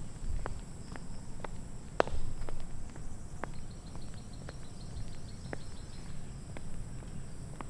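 Footsteps of someone walking at a steady pace, about two steps a second, with one louder step about two seconds in. A steady high-pitched insect drone runs behind them.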